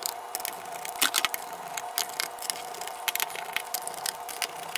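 Small Phillips screwdriver turning out screws from a laptop's bottom cover: a scatter of light clicks and scrapes of the bit in the screw heads, over a faint steady hum.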